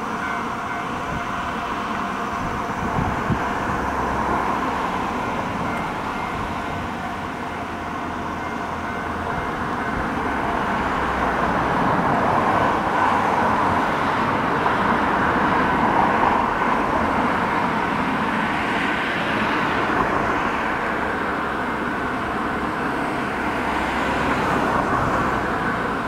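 Distant Kansai Main Line train approaching, a steady rolling noise that grows louder from about ten seconds in, over a hum of road traffic.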